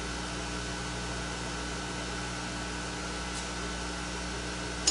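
Steady shop hum of running machinery or ventilation, with a faint metal tick partway through and a sharp metal click near the end as small steel screw clamps on a steel block are handled.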